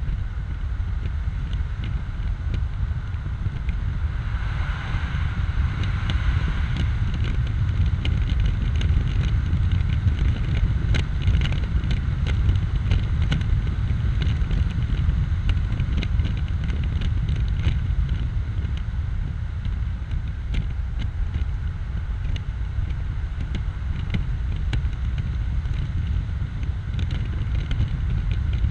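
Wind buffeting over the open cockpit of a 2004 BMW Z4 roadster driven with its top down, a steady low rush mixed with road noise.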